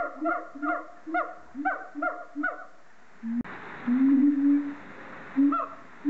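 Siamangs calling: a fast series of loud, pitched barking notes, each dropping sharply in pitch, about three a second, which stops a little over halfway. After a sudden click comes a hissy stretch with a long held hoot and a short one.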